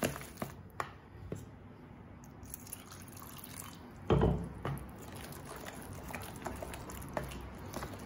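Thick tomato and flour dosa batter being mixed by hand in a plastic bowl, with soft wet squishing, and a short splash about four seconds in as water is poured in from a mixer jar; the wet hand-mixing then goes on.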